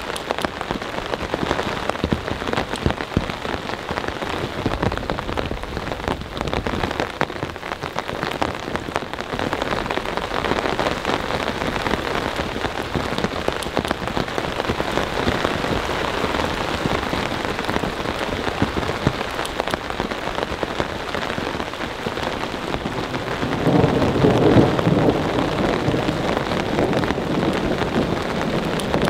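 Heavy, steady rain falling, with a low rumble of thunder swelling up about three-quarters of the way through.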